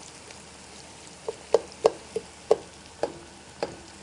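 Spatula knocking and scraping against the side of a pot while stirring frying diced onions and vegetables: a run of sharp knocks a few tenths of a second apart, starting about a second in.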